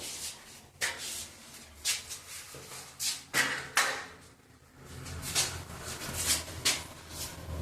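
A series of irregular light knocks and clicks, a dozen or so spread over several seconds, with a short lull about halfway through.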